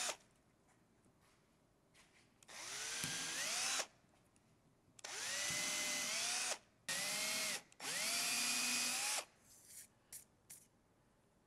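Cordless drill boring holes through 1/4-inch beech plywood in four short bursts. Each burst opens with a whine that rises in pitch and then holds steady. A few light clicks follow near the end.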